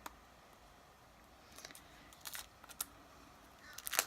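A makeup palette and its packaging being handled: a sharp click, a few faint ticks, then a quick run of clicks and rustling near the end.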